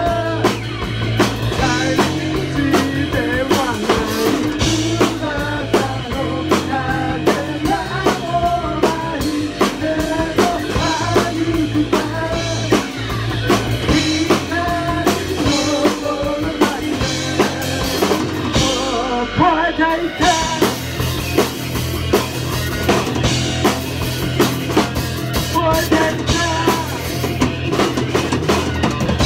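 A live rock band playing a song: electric guitar, bass guitar and a drum kit, with sung vocals. About two-thirds of the way in the full band briefly thins out, then comes back in and carries on without singing.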